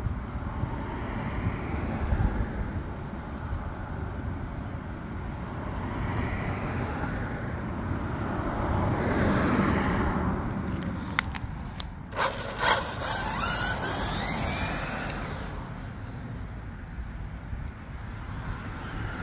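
A 1/10 scale RC touring car runs on a 3S battery, driven by a 550 13T brushed motor. Its motor and gears whine, gliding in pitch for a few seconds about two-thirds of the way through, over a steady outdoor rumble.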